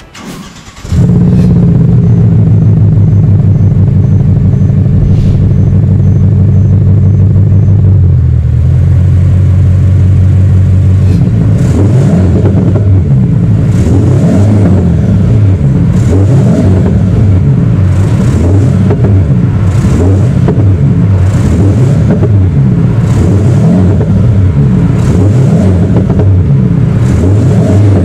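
THOR electronic active-sound exhaust playing a synthetic Mercedes-AMG C63 V8 exhaust note through its speakers as the car is started. It comes in loud about a second in, holds a steady idle, and from about eleven seconds revs up and down over and over while the car stands still.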